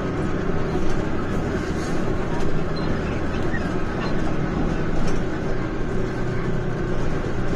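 Inside a moving city bus: the steady drone of the engine and road noise, with low humming tones and a few faint clicks.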